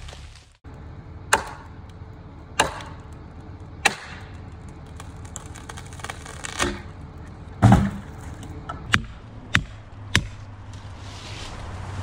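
Axe driving a plastic felling wedge into the back cut of a standing tree: about eight sharp strikes, evenly spaced at first and quicker later, the loudest near the middle.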